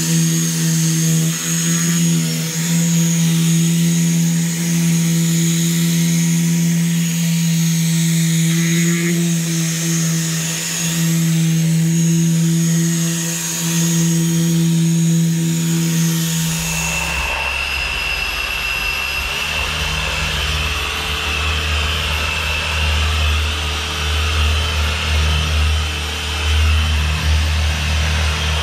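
Variable-speed rotary polisher with a wool buffing pad running against a fibreglass boat hull, working compound into the gelcoat. Its steady motor whine gives way about 17 seconds in to a lower hum.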